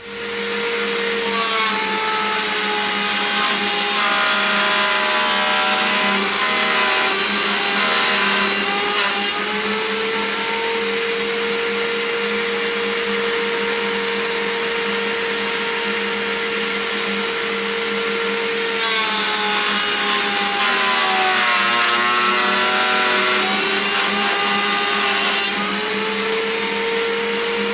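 Table-mounted router spinning a T-slot bit, running steadily with a high whine while a wooden board is fed past it to cut a T-track slot. The whine sags in pitch twice as the bit bites into the wood and slows under the load, then recovers.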